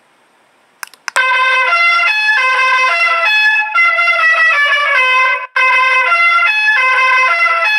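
Electronic sound board for racing-pigeon training playing a trumpet-like melody through its loudspeaker. A click comes about a second in, then the tune runs as a string of held notes, with one short break midway.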